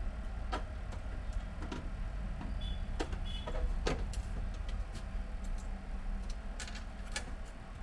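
Scattered light clicks and taps of plastic printer parts being handled and unclipped while the scanner belt's tension adjustment is taken off, over a steady low hum.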